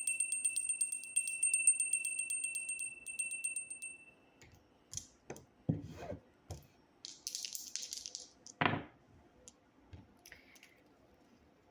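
A small bell rung right at the start, a clear high ringing tone with quick metallic clicks that fades away over about four seconds. After it come a few light knocks and a brief rustle.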